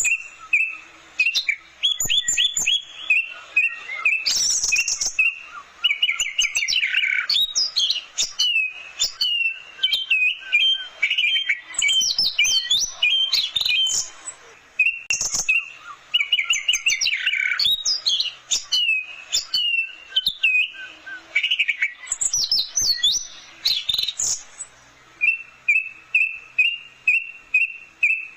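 Orange-headed thrush singing a long, varied song of whistled phrases, quick sweeps and chattering trills, ending in a run of short repeated notes at about three a second.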